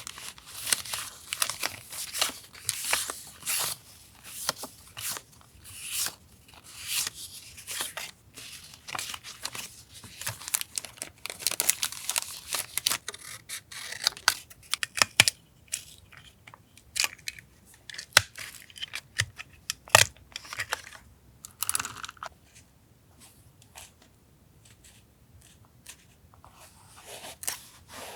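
Paper being torn and rustled by hand in quick, dense strips for the first half, then sparser handling with a quiet stretch near the end.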